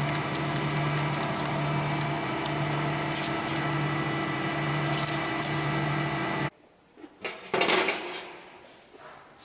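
A workshop machine running with a steady, pulsing hum that cuts off suddenly about six and a half seconds in, followed by a few sharp metallic knocks and clinks.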